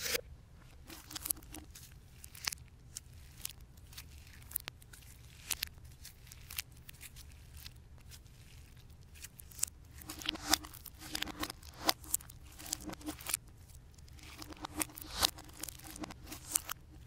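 Aqua slime being stretched, folded and squished by hand, giving off irregular sticky pops and crackles that come thicker in the second half.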